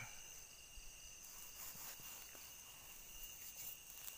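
Insects, crickets among them, chirring steadily in a high thin drone, with a few faint rustling clicks.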